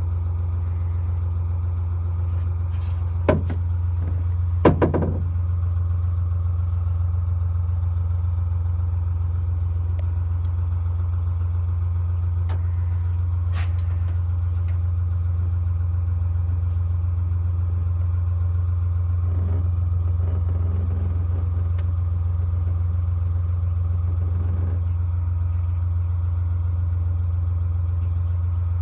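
A narrowboat's diesel engine running steadily with a constant low drone. Two brief knocks come about three and five seconds in.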